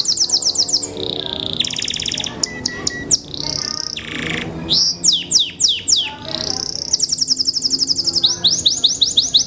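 Belgian Bossu canary singing a varied song of fast repeated-note trills and rapid downward-sweeping whistles, with brief lower rattling passages.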